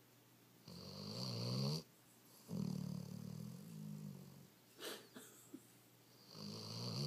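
Weimaraner snoring while asleep: a rasping in-breath, then a longer, lower out-breath, with the next in-breath starting near the end. A brief sharp noise comes about five seconds in.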